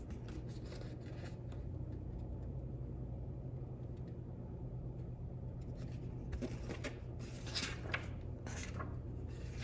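Quiet room tone with a steady low hum. From about six seconds in come a few soft rustles and taps as hands handle a picture book and a patchwork cloth.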